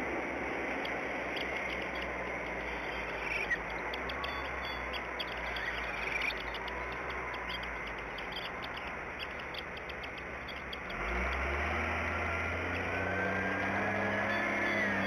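Outdoor nest-cam ambience: a steady rush of wind and leaves with a few faint high chirps. About eleven seconds in, the low steady drone of a motor vehicle joins it.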